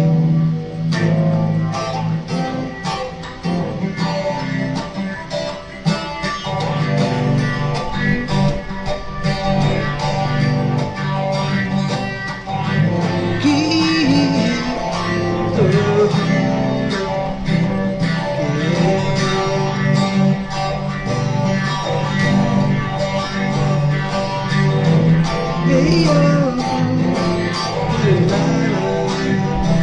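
Electric guitar playing an instrumental passage: quick picked notes over a steady chord accompaniment.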